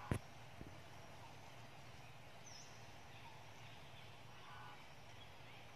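Quiet outdoor background with a steady low hum, a sharp knock just after the start and a softer one about half a second later, and a faint high chirp about two and a half seconds in.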